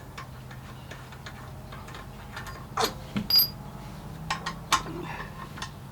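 Irregular metallic clicks and knocks of hand tools working on a pressure washer's pump, with two louder knocks and a brief ringing ping about three seconds in.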